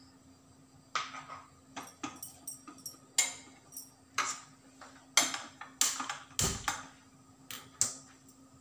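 Scattered clinks and knocks of steel kitchen utensils: a spoon against a steel pressure cooker and small bowls being handled. About a dozen sharp strikes come at irregular intervals, one with a dull thump about six and a half seconds in, over a faint steady hum.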